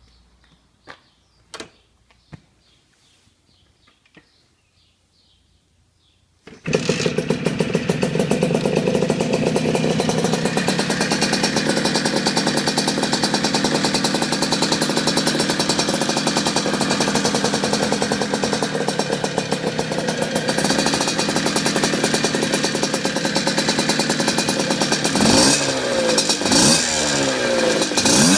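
Puch Cobra's small two-stroke single-cylinder engine catching about six seconds in, after a few light clicks, then idling steadily with a fast popping beat. Near the end it is revved in several quick blips.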